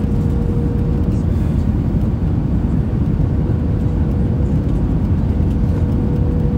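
Steady cabin noise inside an Airbus A320ceo in flight: a constant low roar of the engines and airflow, with a thin steady hum running through it.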